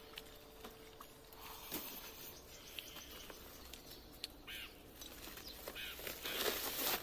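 Quiet outdoor sound of footsteps and small knocks, then a louder rustle of plastic bags of live fish being handled, about six seconds in. A few faint bird chirps.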